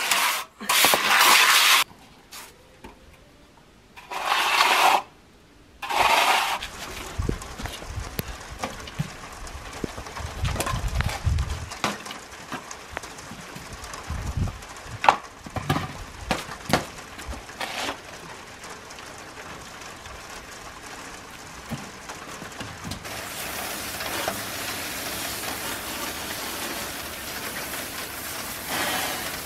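Steel hand trowels scraping over wet concrete in loud bursts at the start, then scattered knocks and taps. From about 23 seconds in, a garden hose sprays water onto the concrete with a steady hiss.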